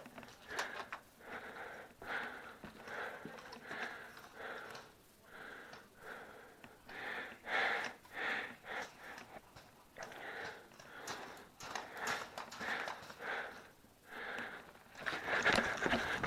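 Close, heavy breathing of a person, a quick steady run of breaths in and out. Louder rustling and shuffling comes in near the end.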